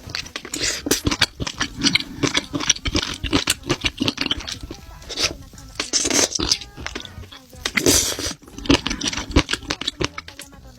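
Close-miked eating: wet chewing and slurping with a rapid, irregular run of sharp mouth clicks and smacks, broken by louder slurps about five, six and eight seconds in.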